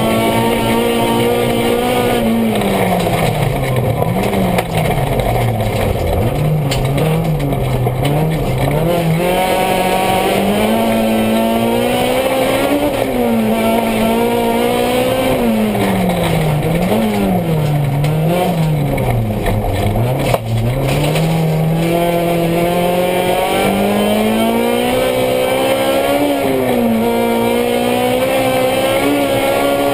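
Honda Civic rally car's B20 four-cylinder engine heard from inside the cabin, driven hard. Its pitch climbs and drops again and again as it revs up through the gears and falls back, with quick up-and-down swings a few seconds in and again about two-thirds of the way through.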